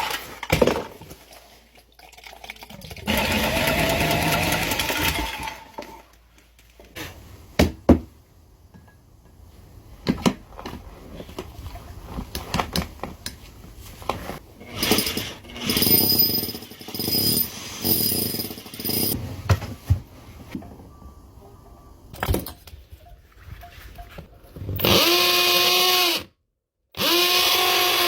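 Power tools run in several short bursts, with knocks and clatter between them. Near the end come two bursts of a steady whine that stop abruptly.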